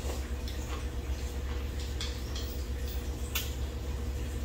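Soft eating sounds of noodles and soup, with small clicks of chopsticks against bowls and one sharper click about three and a half seconds in, over a steady low hum.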